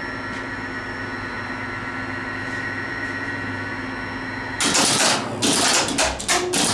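1954 Otis geared traction elevator machine running steadily with a humming whine. About four and a half seconds in, a run of loud clattering clacks from the controller's relays switching as the car stops, and the machine's running sound ends.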